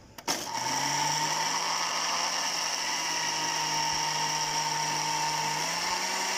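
Electric kitchen blender switched on with a click, its motor spinning up within about half a second and then running steadily as it blends an egg, vinegar and oil mixture into mayonnaise.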